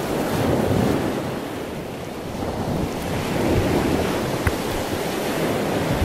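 Small waves washing onto a sandy beach, rising and easing, with wind buffeting the action camera's microphone.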